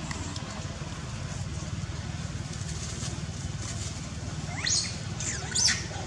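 Two short, high-pitched rising squeals from a macaque, about four and a half and five and a half seconds in, over a steady low rumble.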